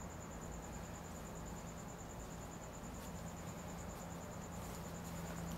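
Quiet outdoor background: a steady hiss and a low hum, with a fast, even, high-pitched pulsing throughout.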